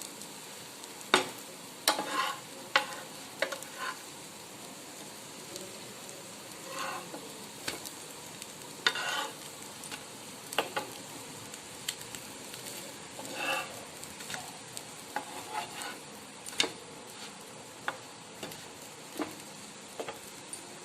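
Bread omelette frying in ghee in a pan: a steady faint sizzle, with occasional sharp taps and short scrapes of a utensil against the pan as the slices are worked.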